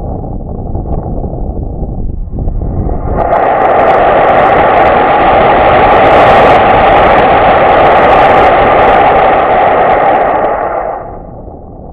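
Homemade sugar-propellant rocket motor in a PVC casing, firing through an all-steel nozzle: a loud, rough rushing roar that starts about three seconds in and dies away about a second before the end. Wind on the microphone before and after the burn.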